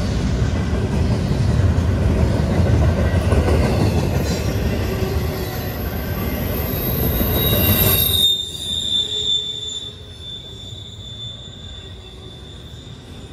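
Double-stack intermodal freight cars rolling past, a loud, dense rumble and rattle of wheels on rail, with a steady high-pitched wheel squeal setting in. About eight seconds in the rumble drops off suddenly, leaving the squeal ringing on over a quieter roll.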